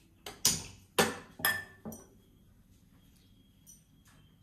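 Metal cookware clanking on a gas stove as pans are moved on and off the burner: about four sharp clanks in quick succession in the first two seconds.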